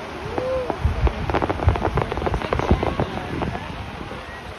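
Aerial fireworks bursting: a dense run of rapid crackling through the middle, with dull low booms underneath.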